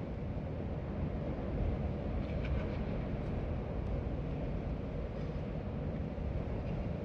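Steady wind ambience: airflow with a low, even rumble.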